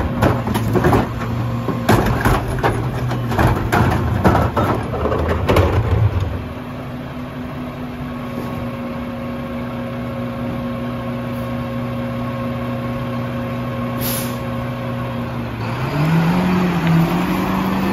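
Mack LR McNeilus rear-loader garbage truck: a cart is tipped into the hopper with a run of clattering knocks and bangs over the diesel's idle. The engine then holds a steady raised speed while the packer runs, with a short air-brake hiss near the end, and the engine revs up rising in pitch as the truck moves off.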